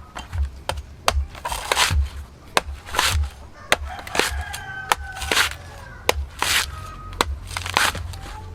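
Coconut being peeled by hand: a run of sharp chops and tearing scrapes at the fibrous husk, irregular, about one or two a second.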